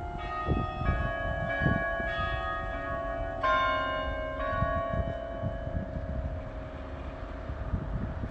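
Tower bells of Oscar's Church ringing: several bells struck one after another, their tones overlapping and ringing on. New strikes stop about four and a half seconds in and the ringing fades over the rest, with a low rumble underneath.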